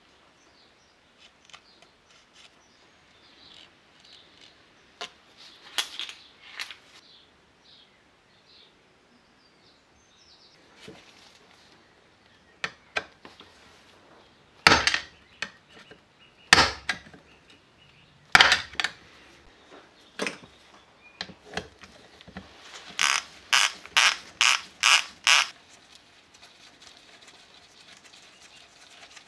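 Wrench working the connecting-rod cap bolts of a small tiller engine: scattered light metal clicks, three sharp metal knocks about halfway through, then a quick run of about seven sharp clicks.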